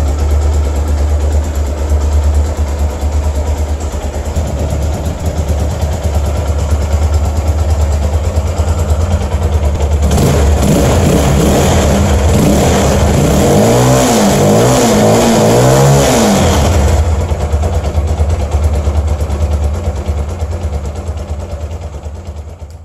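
Zongshen-built Yamaha R1 replica motorcycle engine idling steadily. About ten seconds in it is revved, with a few blips whose pitch rises and falls, three close together near the middle, then it settles back to idle and fades out at the end.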